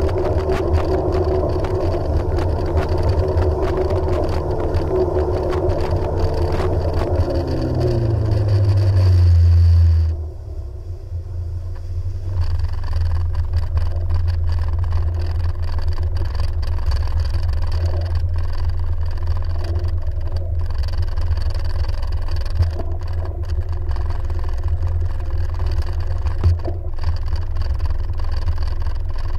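Jet ski engine running; its pitch falls and the sound swells, then drops off abruptly about ten seconds in, leaving a steady low rumble for the rest.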